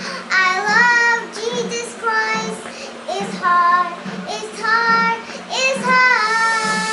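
A young girl singing a nursery rhyme on her own, in short sung phrases that rise and fall in pitch.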